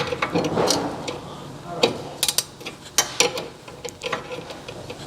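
Hand ratchet clicking in short runs with metallic clinks and knocks as bolts on the rear brake assembly are snugged down.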